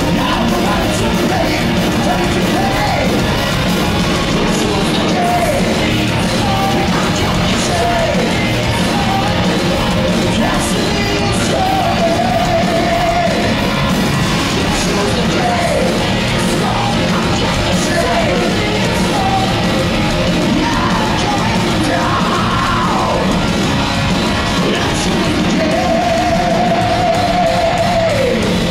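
Heavy metal band playing live through a PA in a large hall, recorded from the crowd: loud distorted guitars and drums under a male singer. Twice he holds a long note with vibrato, once near the middle and once near the end.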